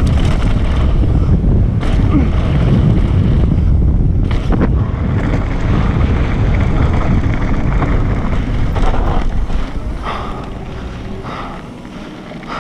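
Wind rushing over the camera microphone of a YT Capra downhill mountain bike at speed, with tyres rumbling over dirt and gravel and a few sharp rattles of the bike over bumps. It eases off near the end as the bike slows on the flat gravel.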